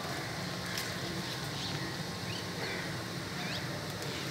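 Steady outdoor city background hum, with a few short, high bird chirps scattered through.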